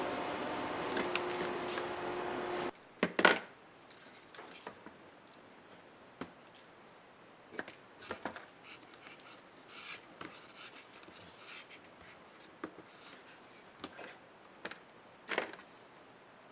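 A steady hum with a low tone cuts off abruptly about three seconds in. Then come scattered light clicks, taps and scrapes of small plastic and metal laptop parts being handled and pried apart by hand.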